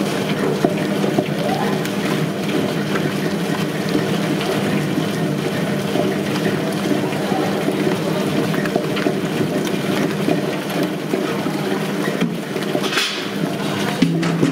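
Wet grinder running steadily: a motor hum with the stone roller churning and scraping through thick batter in the spinning steel drum.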